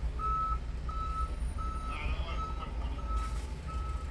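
Repeating electronic warning beep, about one and a half short beeps a second, over a low steady hum.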